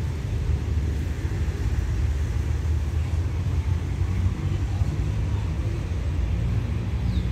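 Diesel passenger train standing at a platform with its engine idling: a steady low rumble with a faint hum that grows a little stronger near the end.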